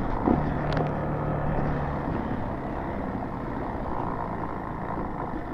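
Dual-sport motorcycle engine running at a steady pace on a sandy dirt trail, with wind and rolling rumble. A steady engine note eases off about two seconds in.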